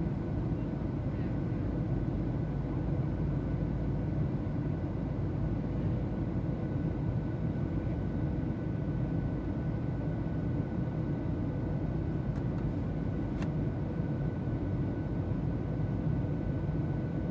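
Steady drone of an airplane cabin in flight: a constant low rumble with faint steady whining tones above it, and one small click about thirteen seconds in.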